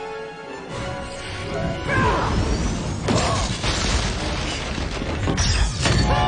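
Film action soundtrack: orchestral score with held notes gives way about a second in to dense crashes, impacts and energy-blast effects, with swooping whooshes rising and falling several times.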